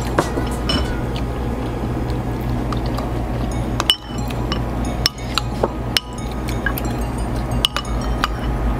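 Eating utensils clinking against a soup bowl in sharp, scattered knocks, about eight over several seconds, over a steady low hum.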